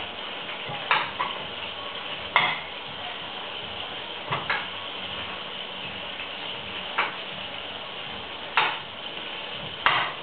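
Sharp kitchen utensil knocks, about eight at irregular intervals, over a steady hiss.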